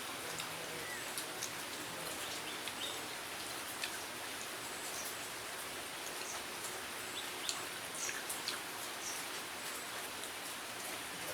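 Steady rain falling, an even hiss dotted with small scattered clicks and a few faint high chirps.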